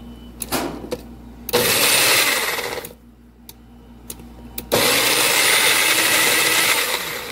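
Countertop blender motor run in two pulses, about a second and a half and then about two and a half seconds, blending a food mixture.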